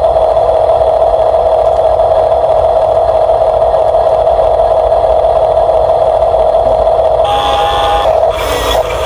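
Electric motor and plastic gearbox of a Huina RC construction model running steadily with a constant whine, shifting briefly to a slightly higher tone a little past seven seconds in.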